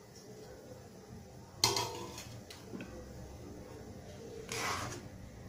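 A metal utensil clanks sharply once against the aluminium cooking pot about one and a half seconds in, then knocks lightly a couple of times. About four and a half seconds in there is a short scraping noise.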